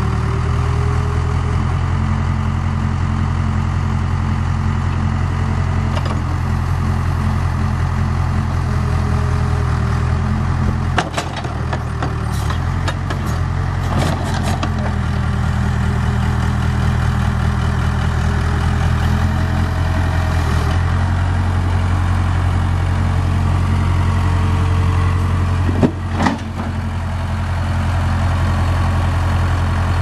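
1991 Case 580 Super K backhoe's diesel engine running steadily under the hydraulics as the backhoe arm and front loader are worked, with a few knocks about a third of the way in and one sharp knock near the end.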